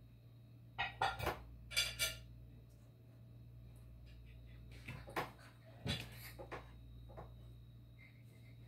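A few sharp clinks and knocks in two clusters, four strong ones about a second in and lighter ones around five to six seconds, over a steady low hum.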